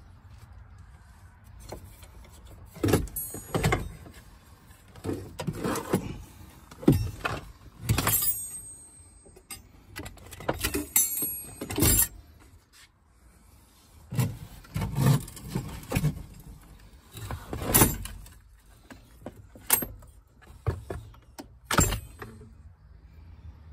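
Irregular knocks, clicks and clinks of metal and plastic parts being handled as the steering intermediate shaft and its lower U-joint are worked loose in the footwell, with a brief jingling rattle now and then.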